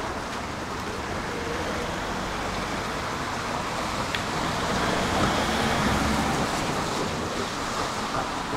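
Tram running along the track: a steady rumble of wheels on rails and running gear, growing louder about five seconds in, then easing off.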